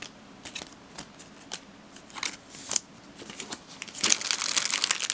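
Clear plastic bag around a stack of trading cards crinkling as it is handled: a few scattered crinkles and clicks, then denser, louder crinkling from about four seconds in.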